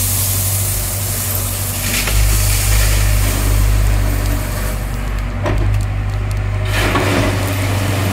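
Excavator engine running steadily under load, with a few bursts of scraping and rattling as stones are handled, the longest near the end.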